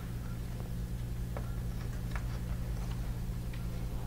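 A few faint, light clicks of patch-lead plugs being handled and plugged into a lab trainer's sockets, over a steady low hum.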